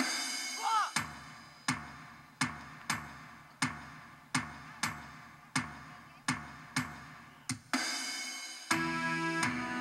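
Music led by a drum struck in a slow, steady beat, about one stroke every three-quarters of a second, with a few quick double strokes. About eight seconds in a crash sounds, and a melodic tune with sustained notes comes in.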